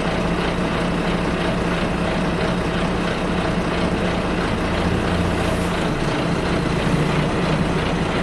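Double-decker bus engine heard from inside the bus, running with a steady low drone, its pitch shifting a little about halfway through.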